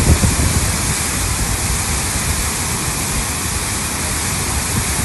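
Floodwater rushing past in a fast torrent: a loud, steady wash of churning water.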